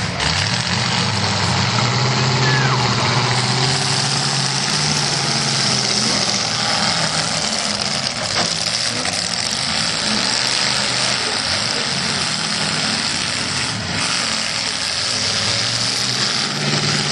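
Demolition derby cars' engines running loudly together, a steady engine drone with a hiss over it.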